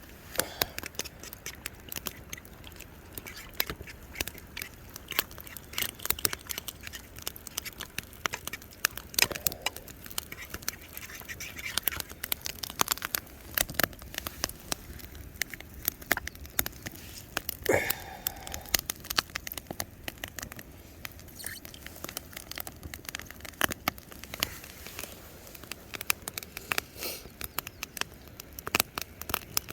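Campfire crackling and popping, with bacon cooking over it: a dense, irregular run of sharp snaps and spits.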